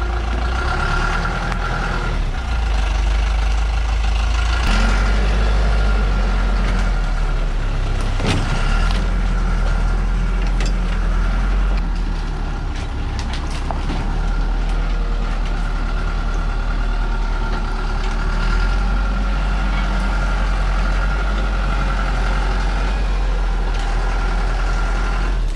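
Diesel engine of a TMT light truck running under load as it manoeuvres over rough ground, its pitch rising and falling a few times. A sharp knock about eight seconds in.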